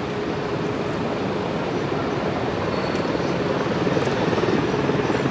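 Airbus A350-900's Rolls-Royce Trent XWB turbofan engines heard from the ground as the airliner flies its final approach: a steady jet noise that grows a little louder in the second half.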